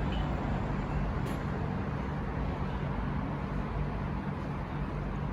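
Wind blowing steadily, a low rumbling noise with no strong gusts.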